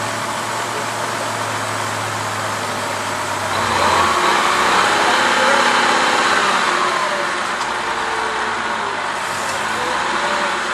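Heavy truck engine running steadily, then louder and working under load for a few seconds from about three and a half seconds in as the amphibious truck is hauled up the bank by the Scammell wrecker.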